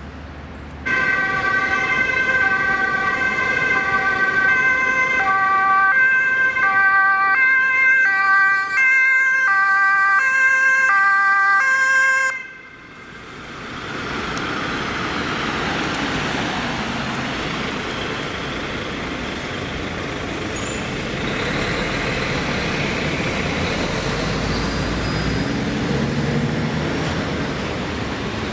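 Two-tone emergency vehicle siren, alternating between two pitches, cutting off suddenly about twelve seconds in. It gives way to road traffic noise as vehicles pass.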